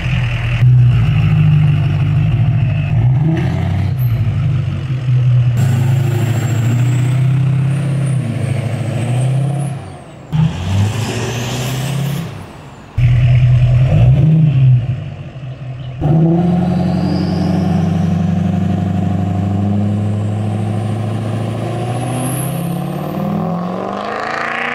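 Ford 6.0-litre Power Stroke V8 turbo-diesel running and revving in several short clips that start and stop abruptly. At times a high turbo whistle rises in pitch over the engine, and near the end the engine note climbs as the truck accelerates hard.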